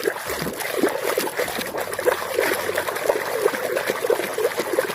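Water splashing and trickling as a muddy plastic toy is washed and swished by hand in water.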